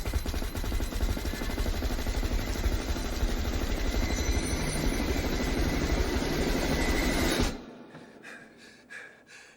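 Loud, dense rumbling roar with a rapid, even pulse from a film soundtrack, cutting off abruptly about seven and a half seconds in, followed by faint scattered sounds.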